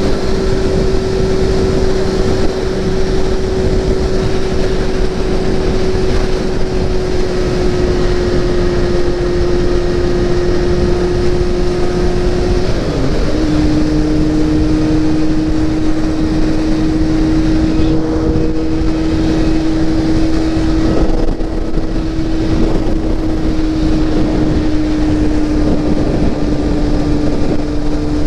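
Motorcycle engine running steadily at highway speed under heavy wind rush on the microphone. About 13 seconds in the engine note drops suddenly and settles lower, an upshift.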